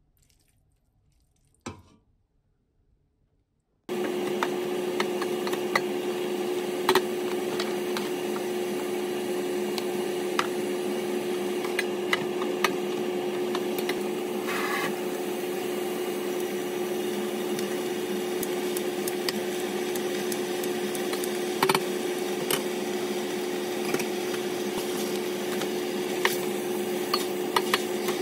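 A few seconds of near silence, then a steady hum with a constant tone that starts abruptly. Over the hum, a plastic ladle clicks and scrapes against a stainless steel pot as beef is stirred in sesame oil.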